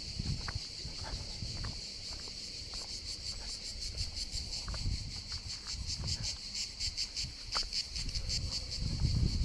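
Insects shrilling: a steady high buzz throughout, with a rapid pulsing chirp over it from about three seconds in. Low thumps and rumbling sit underneath.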